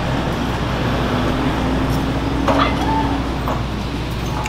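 Steady road-traffic noise, with a faint held hum through the middle and a short click about two and a half seconds in.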